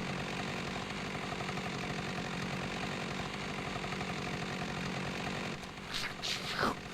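Chainsaw sound effect from the animated film's soundtrack, running steadily as a rough buzz and heard at low level; near the end two quick sweeps fall sharply in pitch.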